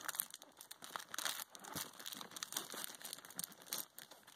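Hands handling sneaker packaging: irregular crinkling and rustling with small scrapes and taps as the shoes and the box's foam insert are moved about.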